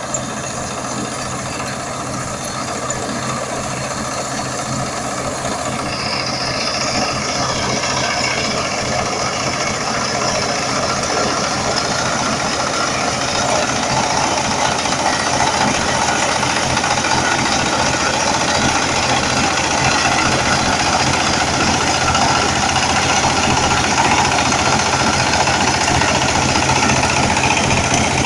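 Combine harvester engine running steadily, with mechanical clatter over the engine note, gradually growing louder.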